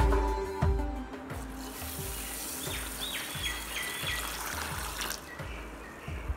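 Water poured into a steel bowl of dry rice, a steady splashing hiss from about two seconds in until about five seconds in. Background music with a low beat runs underneath.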